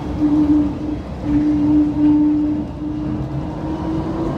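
DFW Skylink automated people-mover train running, heard from inside the car: a steady motor whine over the rumble of the ride, edging up in pitch near the end.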